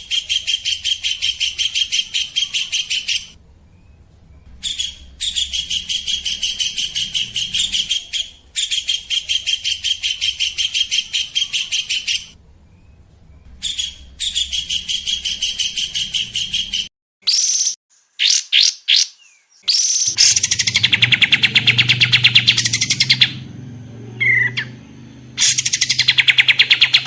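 A small songbird singing long phrases of rapid, evenly repeated trill notes, each phrase a few seconds long with short pauses between. A few high whistled notes come about two-thirds of the way in, then the trills resume over a low background hum. It is a bird-song recording of the kind played to tutor young songbirds.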